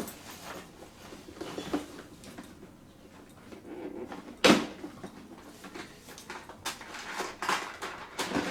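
Rummaging through a collection of toys, items being moved and knocking and clicking against each other; one sharp knock about four and a half seconds in is the loudest, with a quick run of clicks near the end.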